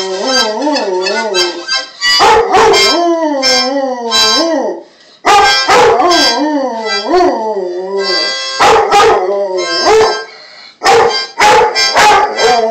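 A dog howling along to a harmonica. Its long howls waver up and down in pitch over the harmonica's chords, with short pauses about five and ten seconds in.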